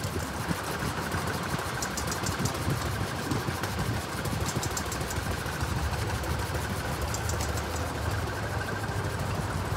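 1921 Aveling and Porter steamroller standing in steam: a steady low mechanical rumble, with a short run of rapid high ticks about every two and a half seconds.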